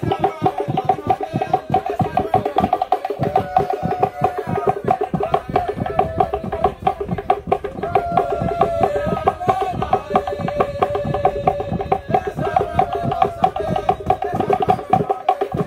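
Traditional Vanuatu snake dance music: a group chanting in held, wavering notes over fast, even percussion clicks.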